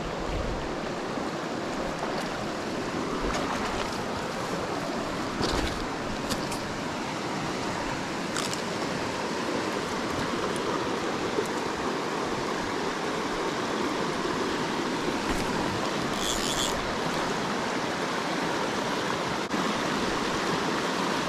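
Fast, murky mountain river rushing over rocks in a steady wash of noise, running high with runoff.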